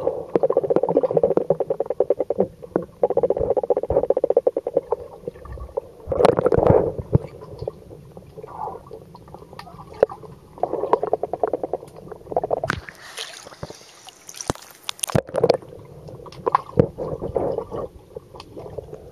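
Pool water gurgling and sloshing, heard underwater: muffled and crackly, coming in uneven bursts as swimmers move close by.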